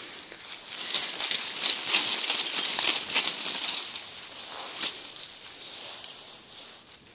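Dry, dead red maple leaves falling in a shower, a dense patter of light ticks and rustles as they hit each other and the ground, thickest about a second in and thinning out toward the end.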